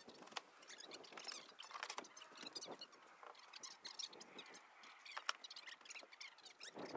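Faint scattered clicks and light taps of manufactured stone veneer panels being handled and test-fitted against a wall.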